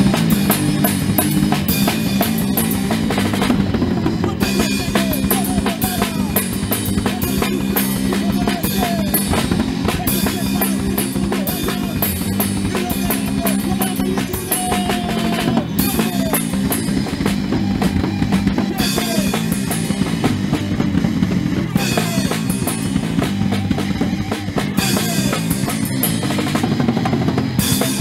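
An Oi! punk band playing a song: drum kit beating steadily under electric guitar and bass guitar through amplifiers, with a male singer singing in Spanish.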